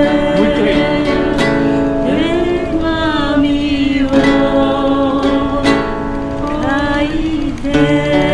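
Acoustic guitar strummed in steady chords as accompaniment, with voices singing a slow Japanese folk-pop melody over it.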